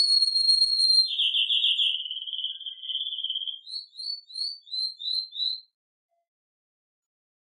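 Domestic canary singing: a held whistled note, then a fast rolling trill about a second in, then six short chirped syllables that stop abruptly.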